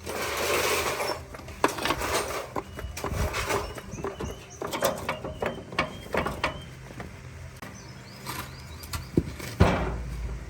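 Hand work on metal machine parts: a short hissing or scraping burst at the start, then scattered clicks, taps and knocks of tools and parts, with a louder knock near the end.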